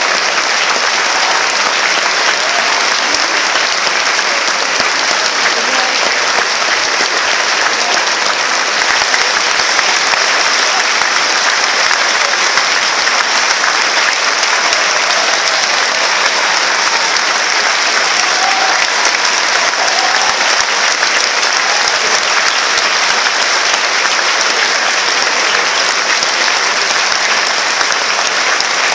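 Large theatre audience applauding: dense, steady clapping that keeps up without a break.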